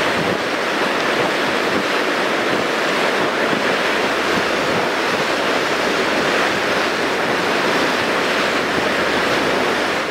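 Steady rush of sea waves and wind over open water, with no engine or voice standing out.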